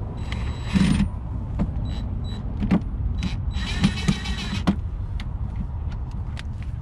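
Cordless drill/driver driving a screw into a plastic insert, cutting threads as it goes: short bursts of the whining motor, about a second in and again near four seconds in, with sharp clicks between.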